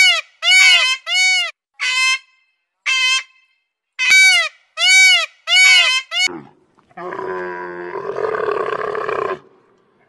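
A peacock calling loudly in a quick series of about nine short, arched, ringing calls over the first six seconds. Then, from about seven seconds in, a dromedary camel gives a low, rough groaning call for about two and a half seconds.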